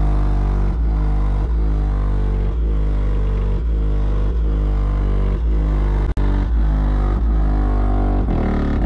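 Music played loud through a car's dual 12-inch, 2400-watt Skar Audio subwoofers and amplifier, with deep bass notes dominating over a steady repeating beat. It drops out for an instant about six seconds in.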